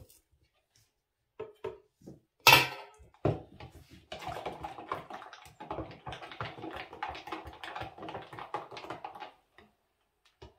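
Metal spoon stirring liquid in a plastic measuring jug: a few knocks and one sharp clack about two and a half seconds in, then about five seconds of rapid clinking and scraping against the jug's sides.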